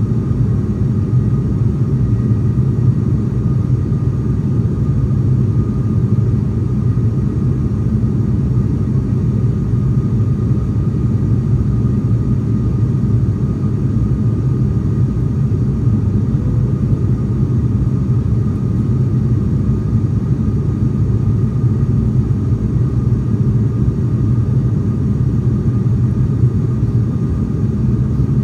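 Steady low drone of an ATR 42 turboprop's engines and propellers heard inside the passenger cabin in flight, with a thin steady high tone above it.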